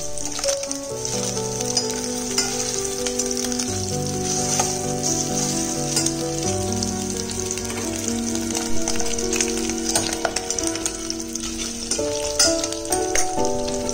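Fatty pork cubes sizzling as they fry in their own fat in a stainless steel pot, with a metal ladle scraping and knocking against the pot, more often near the end. Background music with held notes plays underneath.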